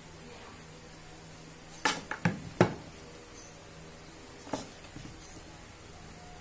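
Hard plastic and metal drill parts clacking against each other and the table as they are handled: four sharp clacks in quick succession about two seconds in, and one more about two seconds later, over a faint steady hum.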